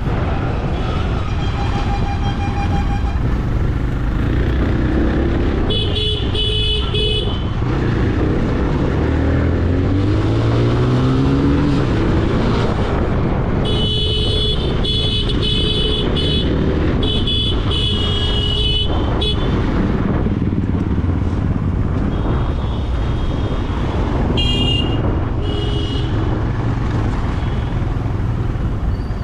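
Vehicle horns honking in road traffic over the steady running of a motorcycle engine and wind. One honk about six seconds in, a long string of honks around the middle, two short toots near the end, and an engine rising in revs around ten seconds in.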